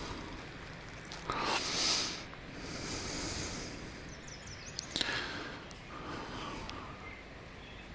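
A person breathing close to the microphone: several breaths, each about a second long, with a few faint clicks about halfway through.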